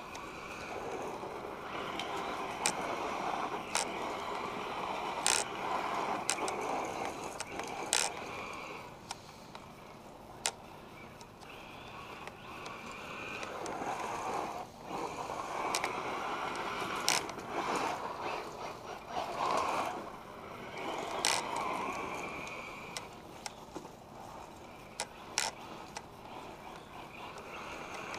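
1/8-scale electric RC car with a Castle Sidewinder 8th-scale 2200 kV brushless motor, driving on gravel: motor whine and tyres crunching through loose gravel swell and fade as it speeds past and away, several times over. Sharp clicks and ticks are scattered throughout.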